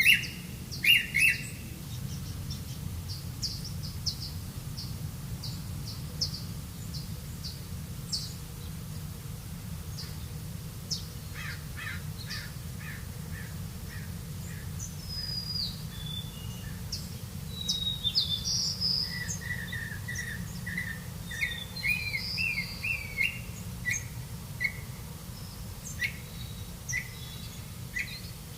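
Songbirds chirping and calling in short, high notes, several calls overlapping and growing busier in the second half, over a steady low background rumble.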